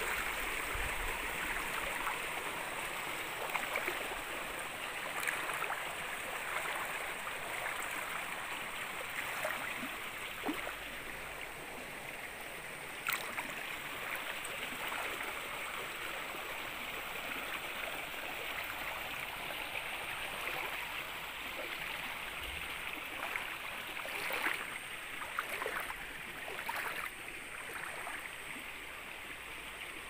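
Shallow stream flowing steadily over a stony bed, with an even rush of water and scattered small plops and splashes, several of them close together near the end.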